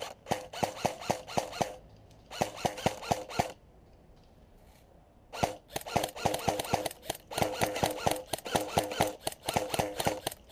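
Airsoft gun firing in rapid bursts, about five or six shots a second, with a pause of about two seconds near the middle before a longer stretch of fire.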